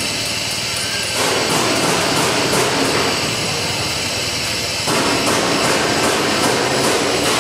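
A 1000 mm bubble film (air bubble wrap) making machine running as aluminium foil feeds over its rollers onto the bubble film: a loud, steady machine noise with a lot of hiss and a light, regular ticking about three times a second. The noise swells about a second in, eases near the middle, then swells again.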